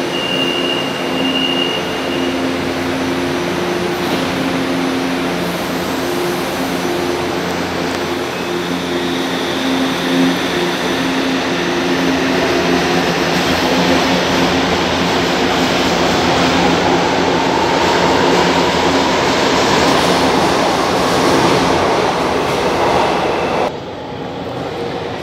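São Paulo Metro Line 3 trains in the station: a steady rumble with a low motor hum, then a rising electric whine from about halfway as a train's traction motors accelerate it away from the platform. The sound drops suddenly to a quieter level near the end.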